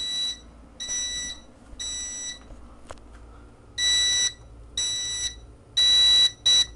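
Fire alarm sounder on an EST Fireshield panel's notification circuit, beeping in the temporal-3 pattern: three half-second high-pitched beeps, a pause, three more, then a short beep near the end. This is the code-3 evacuation signal, set off by the panel's drill function.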